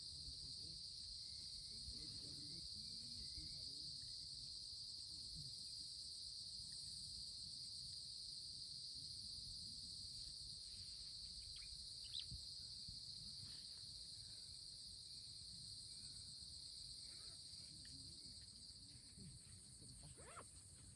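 A faint, steady, high-pitched chorus of insects chirring without a break, with a small click about twelve seconds in.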